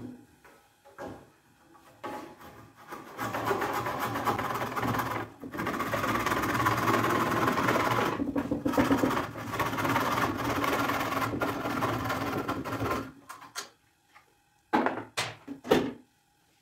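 Handsaw cutting wood flush across the inside of a turned Albizia lebbeck bowl, sawing off the centre nub in a run of fast, even rasping strokes for about ten seconds with two short pauses. A few sharp knocks near the end.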